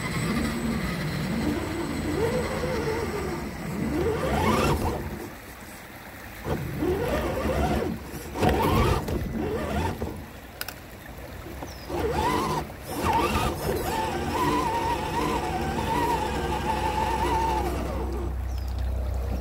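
Electric motors and gearboxes of RC rock crawlers whining, rising and falling in pitch with the throttle and held steady for several seconds near the end, with a few sharp knocks from the rocks.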